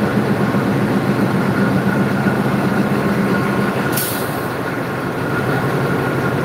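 Diesel locomotive running as it rolls slowly past, a steady engine hum. About four seconds in, a short burst of hissing air.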